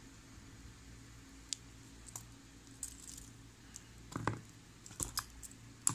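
Light clicks and clinks of a Michael Kors chronograph's metal link bracelet being handled and put on the wrist, growing busier in the second half, with a dull knock about four seconds in.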